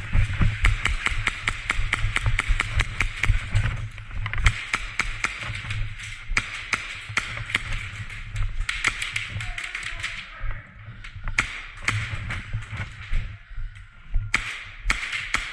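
Airsoft guns firing rapidly, a fast run of sharp snapping shots in several long bursts with short pauses between them.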